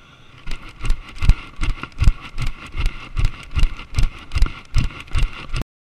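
Running footfalls of a jogger on a paved road, with the camera he carries jolting at each stride: a steady rhythm of heavy thumps about two and a half a second, cutting off abruptly near the end.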